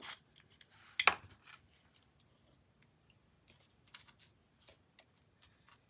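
Small tapping and dabbing handling sounds, with one sharp click about a second in and then scattered soft taps and rustles. These come from an embossing dauber being dabbed in embossing powder and onto small paper pieces.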